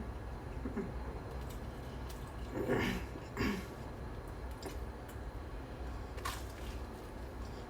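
Someone eating toast: faint wet mouth and chewing sounds, with a few short pitched sounds clustered about three seconds in and a single click near the end, over a low steady hum.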